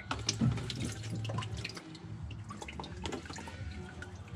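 Engine oil dripping and spattering from a spin-on oil filter as it comes off its mount by hand, some of it spilling onto cardboard: an irregular patter of drops over a low steady hum.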